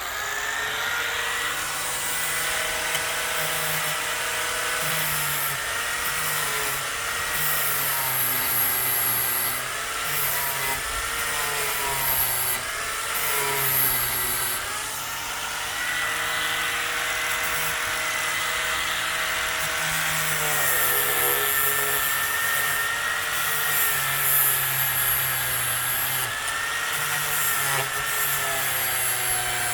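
Grinder running continuously, grinding down a clamped steel rod. Its whine wavers up and down in pitch as the load on the metal changes.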